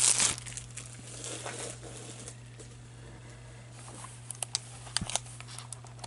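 Hockey card pack wrapper crinkling as it is handled, loudest in the first half second, then fainter rustling with a few light clicks, over a steady low electrical hum.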